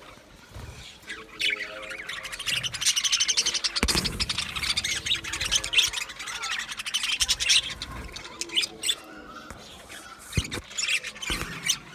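A flock of budgies chattering, with many fast overlapping chirps, squawks and warbles. There is a sharp knock about four seconds in and a couple of lighter knocks near the end.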